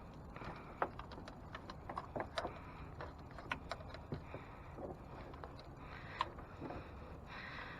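Hands working small parts: scattered faint clicks, taps and rustling, several a second at times, over a low steady background hum.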